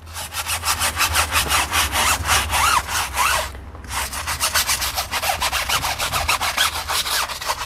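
Stiff-bristled tyre brush scrubbing the foamed rubber sidewall of a car tyre in rapid back-and-forth strokes, several a second, with a brief pause about halfway through. The sound is the tyre cleaner being agitated into the rubber.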